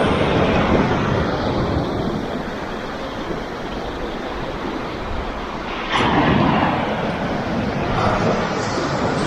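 Ocean surf on a rocky shore with wind rumbling on the microphone; a louder wave breaks about six seconds in.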